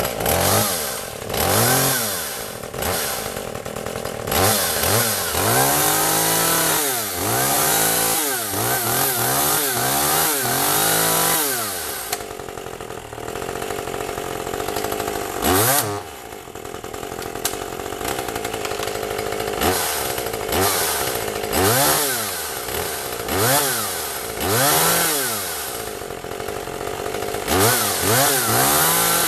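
Small Hitachi top-handle two-stroke chainsaw engine running and being revved in repeated quick throttle blips, its pitch shooting up and dropping back each time. The blips come fast for the first dozen seconds, then it idles steadily for a few seconds before more separate revs follow every second or two.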